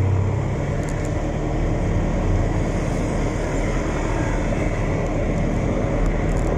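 Motorcycle engine running steadily at riding speed, a constant low hum under heavy wind and road noise.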